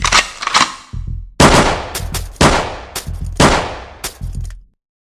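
A series of loud, echoing bangs: a few smaller ones first, then three heavy ones about a second apart, each ringing out, the last fading away before the end.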